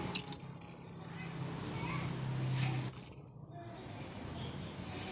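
Blue-crowned hanging parrot (serindit) calling in high-pitched, rapid trilled bursts: two short bursts in the first second and another about three seconds in.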